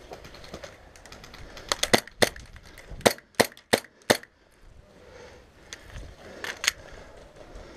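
WE G19 gas blowback airsoft pistol firing sharp single shots: a quick group of about four shots some two seconds in, four evenly spaced shots around three to four seconds in, and two more a couple of seconds later.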